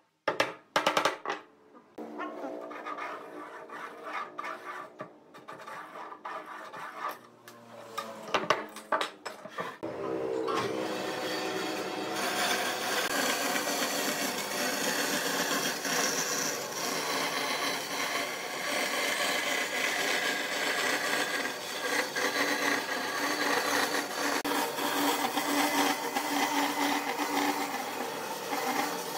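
A few sharp knocks and handling noises on a wooden board, then from about ten seconds in a narrow-bladed electric saw runs steadily, cutting a curve through the wood.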